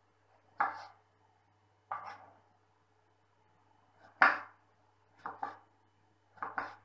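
Kitchen knife chopping tomatoes on a wooden cutting board: about seven separate strikes of the blade on the board, unevenly spaced, the loudest about four seconds in and two quick pairs near the end.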